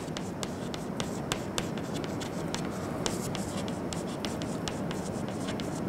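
Chalk writing on a chalkboard: a quick, irregular series of sharp taps and short scratches as the letters are stroked out.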